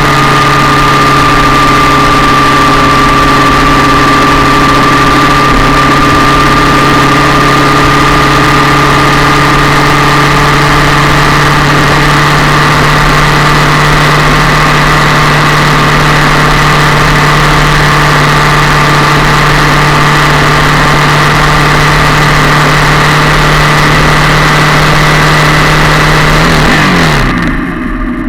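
Yamaha MT-07 parallel-twin engine running loud and steady at constant revs, close to the engine. Near the end its note drops in pitch and gets quieter.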